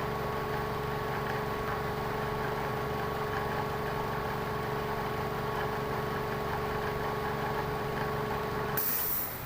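Lexus car engine idling steadily with a constant hum; it cuts off abruptly near the end with a short burst of hiss.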